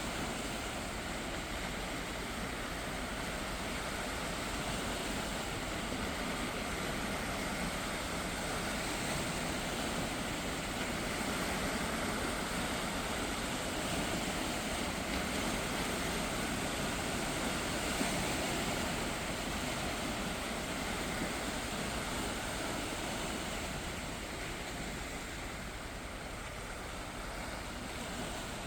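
Gentle sea waves washing, a steady rushing noise that swells slightly in the middle and eases off near the end.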